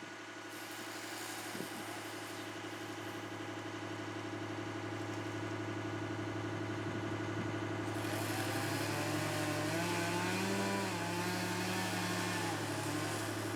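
A machine engine running steadily and slowly getting louder. About two-thirds of the way through, a second wavering tone joins it, rising and falling in pitch as the load or speed changes.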